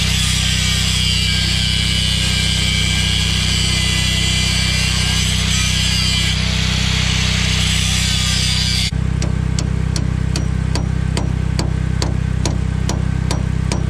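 Angle grinder cutting into a worn-out conveyor bearing on its steel shaft. About nine seconds in the grinding stops and hammer blows on the metal begin, about two to three a second, while a small engine hums steadily underneath throughout.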